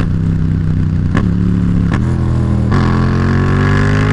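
Yamaha FZ-07 (MT-07) 689 cc parallel-twin engine accelerating up through the gears, its pitch rising and dropping at quick upshifts about one, two and three seconds in, then climbing again.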